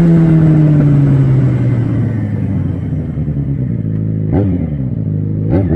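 Yamaha XJ6's 600 cc inline-four engine through an aftermarket sport exhaust. The revs fall steadily over the first two seconds, settle low, and then take a quick throttle blip about four seconds in and another near the end.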